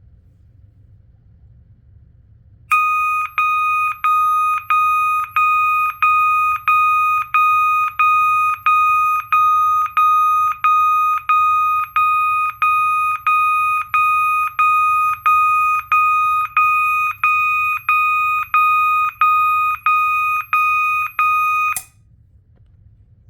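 System Sensor MASS2475ADA fire alarm sounder strobe sounding a loud, evenly pulsed single-pitch beep, about three beeps every two seconds. It starts a few seconds in and cuts off sharply a little before the end.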